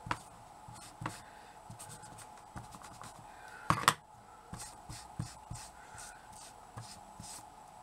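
Light scratching, rubbing and small taps as black paint is worked by hand into a small wooden miniature tabletop, over a faint steady hum. A brief, louder rasp comes just before four seconds in.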